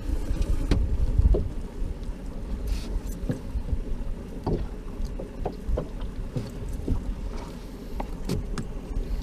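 A small fishing boat on the water, with a low rumble and scattered light knocks and clicks at irregular times.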